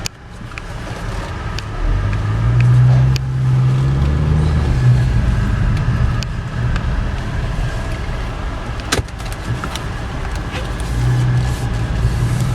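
A 2011 Chevy Equinox's 2.4-litre four-cylinder engine pulling away and accelerating, heard from inside the cabin. The engine hum strengthens about two seconds in, settles to a steady drone with road noise, and picks up again near the end. A few light clicks are heard along the way.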